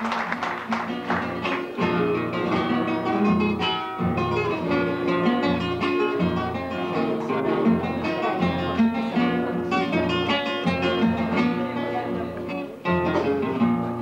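Two nylon-string acoustic guitars playing an instrumental interlude between sung verses, picked notes over a moving bass line.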